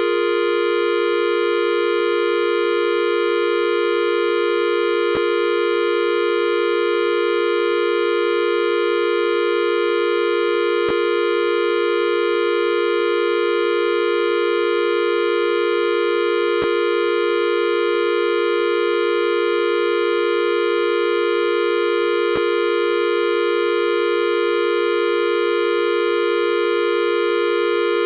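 A steady electronic tone, like a buzzer or dial tone, held at one pitch and level, with a faint click about every six seconds.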